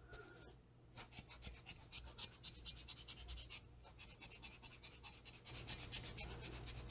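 Squeeze-bulb air blower pumped rapidly by hand, giving faint, quick, hissy puffs of air, about five a second, to push wet alcohol ink across a tile. The puffs begin about a second in.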